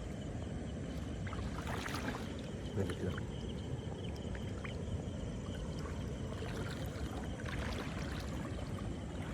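Shallow river water sloshing and splashing around legs as someone wades slowly through it.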